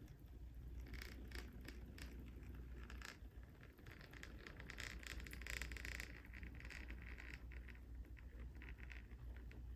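HO scale Alco RS2 model diesel locomotive with a new budget motor crawling at very slow speed: faint, irregular clicking and crackling from wheels on track, over a low steady hum.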